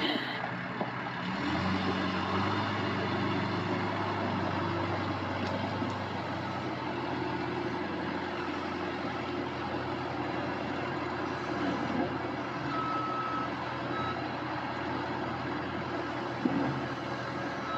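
Excavator's diesel engine running steadily, its pitch stepping up about a second in. A warning beeper sounds two short beeps near the end.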